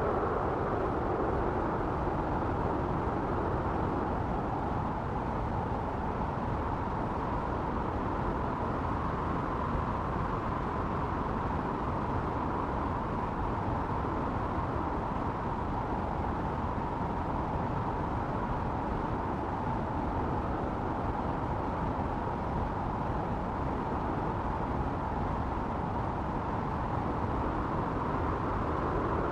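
Wind blowing steadily, a constant low rush with a faint tone in it that rises slowly near the start and then holds.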